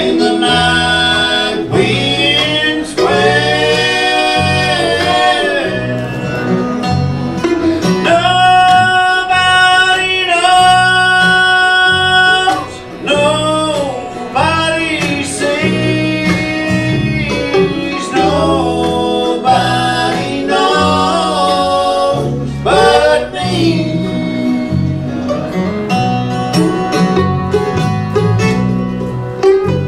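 Bluegrass band music: banjo and guitar keeping a plucked rhythm under a lead melody line that slides between long held notes.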